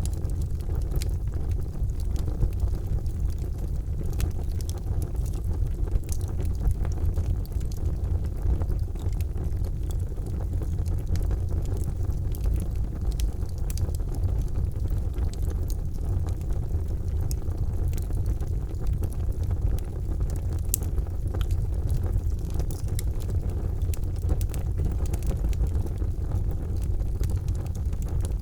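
Charcoal fire burning: a steady low rumble under frequent small, scattered crackles and pops.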